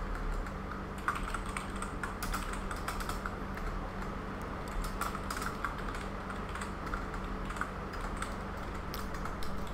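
Typing on a computer keyboard: quick, irregular key clicks as a line of code is entered, over a steady low hum.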